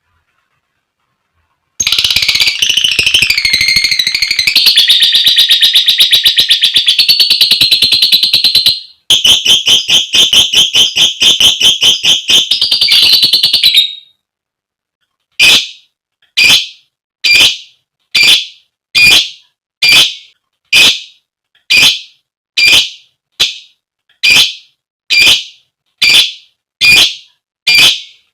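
Female lovebird giving a long, rapid, high-pitched chattering trill (the ngekek) for about twelve seconds, starting about two seconds in. After a short pause she calls with sharp single notes repeated about once a second, calling for a male.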